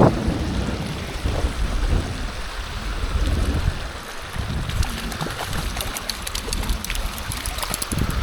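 Wind buffeting the microphone with a low gusty rumble, over water noise. From a little past halfway, a run of rapid light clicks.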